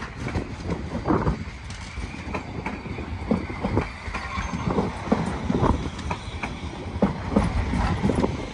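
Vehicle rumbling along, with irregular knocks and clatter over a steady low rumble.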